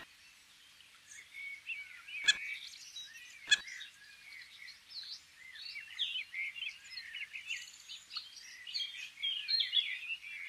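Small birds chirping and twittering continuously, with two short, loud, high squeals about two and three and a half seconds in.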